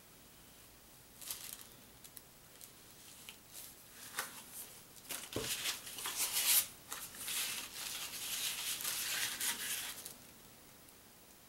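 Paper hang tags rustling and sliding as they are handled and moved about. The rustling is steady from about four seconds in until shortly before the end, with a soft knock about five seconds in.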